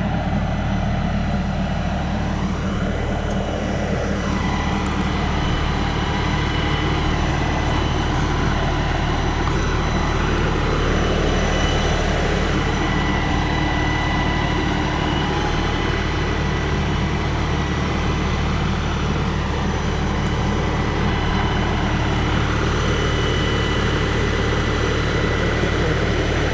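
42 hp LS compact tractor's diesel engine running steadily close by, with a constant high whine over the engine note.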